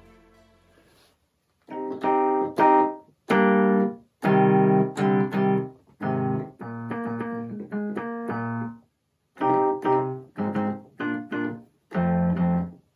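Roland S-50 sampling keyboard playing an electric piano patch: short chords with brief gaps starting about two seconds in, a longer held passage in the middle, then more chords. It is played to test its newly replaced output relay, which the owner judges good.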